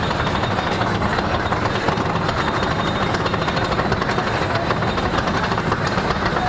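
Dahlonega Mine Train roller coaster running on its track: a steady low rumble with a rapid, dense clatter of wheels and track.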